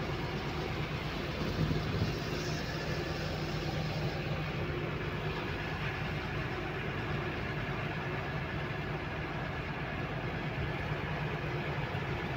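Steady engine drone and road noise of a moving truck, heard from inside its cab while cruising on a highway.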